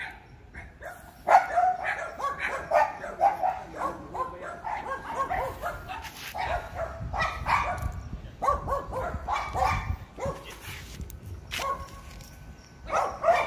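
Small white dogs barking and yapping over and over in quick, short barks.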